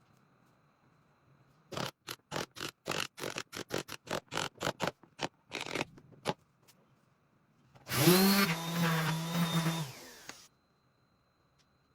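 A run of quick scraping or sanding strokes on wood, speeding up, then a power tool whirring for about two and a half seconds, spinning up at the start and stopping.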